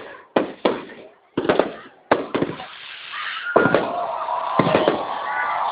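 Fireworks going off: sharp bangs in quick succession, roughly every half second. From about three seconds in they give way to a dense, continuous crackling barrage.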